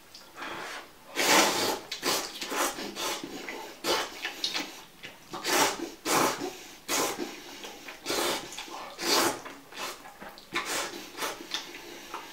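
A person slurping hot noodles off chopsticks: a run of short, loud slurps, roughly one a second.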